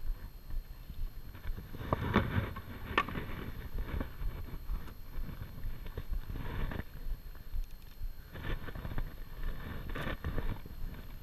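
Wind buffeting the camera microphone, with bursts of fabric and line rustling and a few sharp clicks as a fly rod and line are worked during casting.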